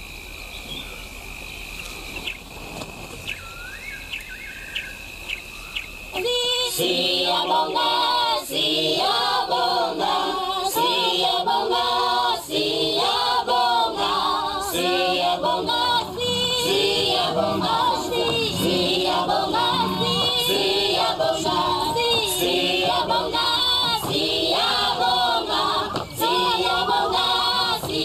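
Bush ambience of bird chirps over a steady high drone. About six seconds in, loud choral singing begins and continues, with many voices.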